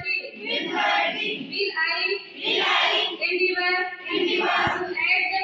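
Group of high voices singing together, with held notes of about half a second between shorter sung syllables.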